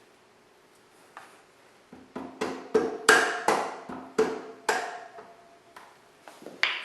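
A quick run of sharp metallic clinks and knocks with short ringing after each, as motorcycle bolts and hand tools are picked up and set down. About eight strikes come close together in the middle, and a few lighter ones follow near the end.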